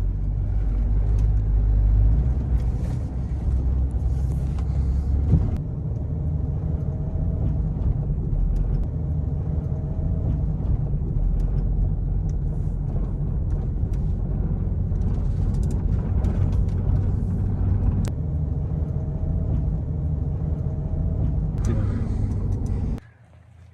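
A 1996 Jeep Cherokee XJ running with a steady low rumble, with a faint rising whine now and then. It cuts off suddenly near the end.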